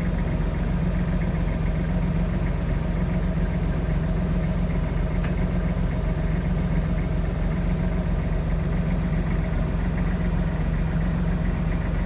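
Kubota tractor's diesel engine idling steadily, heard from inside its closed cab.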